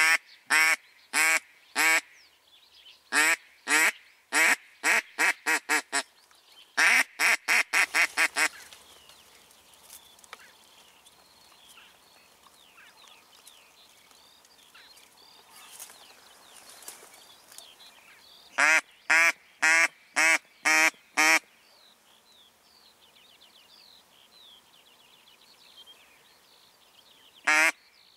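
A hen mallard quacking loudly in repeated series. The longest series runs about 3 to 8 seconds in and quickens toward its end. After a pause of about ten seconds, two shorter series follow, with faint chirping of small birds in between.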